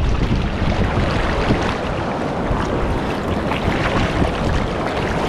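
Steady rush of river water with wind buffeting the microphone.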